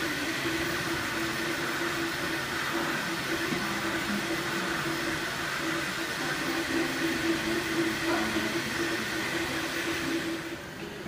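Desktop 3D printer at work: its stepper motors whine in tones that break and shift as the print head moves, over a steady mechanical whir. It gets quieter near the end.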